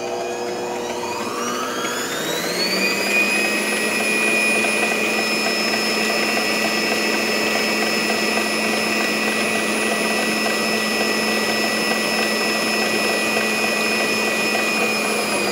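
Mondial Profissional Eletrônica Premium stand mixer's 300-watt motor whining as its soft start ramps the speed up over the first three seconds, then running steadily with the balloon whisk turning in the bowl, and starting to wind down at the very end.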